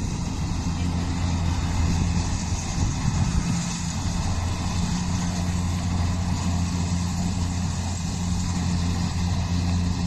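Engine of rice-harvesting machinery running steadily at a constant speed, with a low, even hum.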